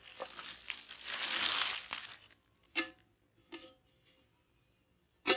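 Clear plastic bag crinkling as a small stainless steel trash can is pulled out of it for about two seconds, then a few light taps and, near the end, a sharp metallic knock on the can that rings briefly.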